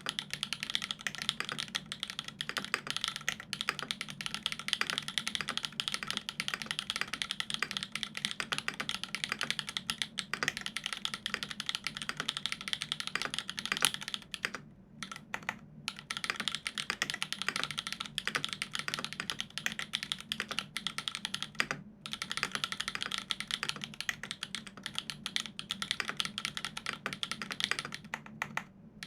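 Fast, continuous typing on a Dolumina65 custom mechanical keyboard with an aluminium plate, lubed Everglide Dark Jade Black switches and GMK keycaps: a dense stream of key clacks with brief pauses about halfway through and again near the end.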